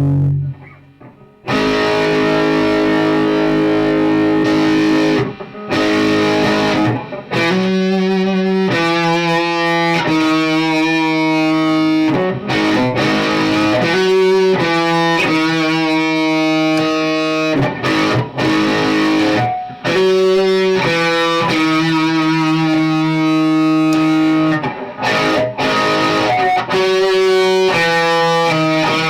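Electric guitar with Fleor Alnico 5 two-wire humbucker pickups, playing held chords and riffs with short breaks between phrases.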